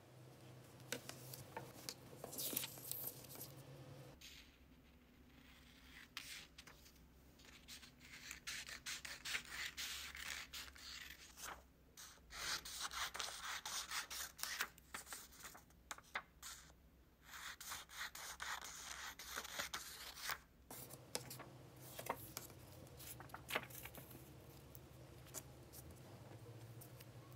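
Scissors cutting through printer paper, with sheets rustling and sliding on a tabletop.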